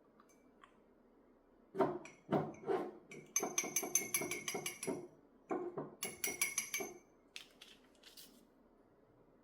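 Quick back-and-forth strokes of fine sanding on a small metal jewelry piece, in two runs of about six or seven strokes a second with a faint ringing tone. A few lighter strokes follow near the end.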